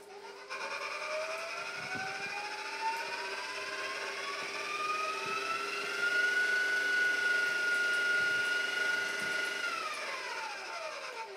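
Electric stand mixer's motor whining as its speed is turned up, with the flat beater working cake batter in a steel bowl. The pitch climbs steadily for about six seconds, holds level for a few seconds, then winds down quickly near the end.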